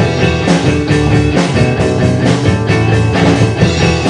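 Instrumental rock music from a band of drum kit, bass guitar and guitar, with a steady beat.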